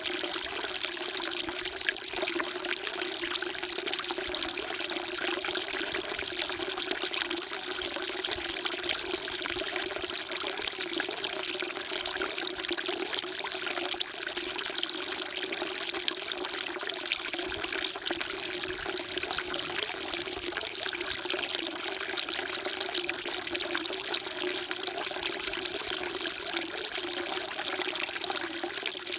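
Water pouring in a steady stream from a spout into a stone water trough (sugwak), splashing without a break.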